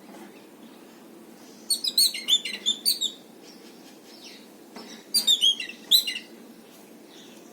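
Bird chirping: two bursts of rapid, high chirps, each lasting about a second, the first about two seconds in and the second about five seconds in.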